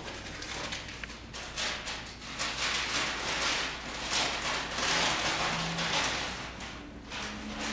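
Popcorn crackling and rustling in a popcorn machine: a dense, rain-like patter of tiny clicks that swells in the middle and eases off near the end.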